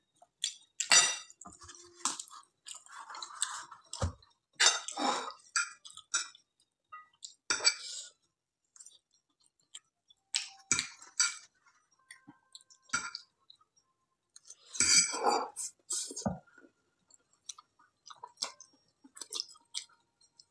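A fork clinking and scraping on a ceramic plate while a person eats fried instant noodles, with chewing sounds between. Irregular short clinks with quiet gaps between.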